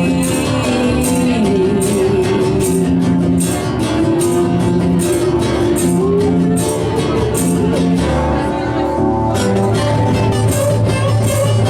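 Live rock band playing an instrumental passage: an electric guitar line over bass and drums, with evenly spaced cymbal hits. About nine seconds in the band shifts into a new section, with a held low bass note and busier drumming.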